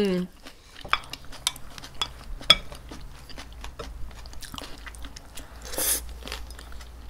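Close-miked eating: chewing, with scattered light clicks of chopsticks and a spoon against bowls and dishes, and a short slurp of noodles a little before six seconds in.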